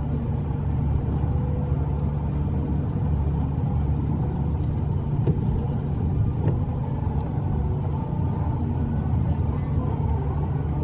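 Small amusement-ride boat's motor running with a steady low rumble as the boat moves along.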